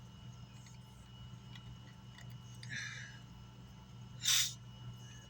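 Steady low hum with light handling noise: a faint scrape near the middle and one short, sharp hiss-like burst about four seconds in.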